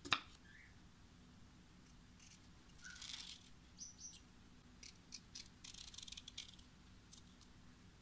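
A kitchen knife cuts through a cucumber and knocks once on a bamboo cutting board just after the start. A hand peeler then scrapes strips of skin off the cucumber in short, faint scraping strokes, several in quick succession near the middle.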